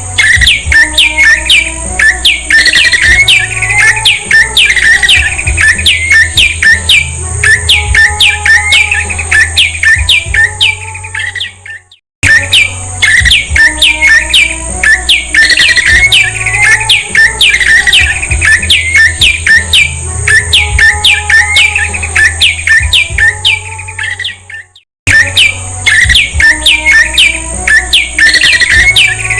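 Recorded song of a prenjak (prinia): a fast run of sharp, down-slurred chipping notes, about three a second, played as a loop that stops and restarts twice, over a steady low hum.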